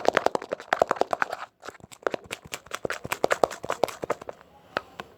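Sticky glue-and-detergent slime mixture being stirred in a container: a fast run of wet clicks and pops, many per second, with a brief pause about a second and a half in and thinning out near the end.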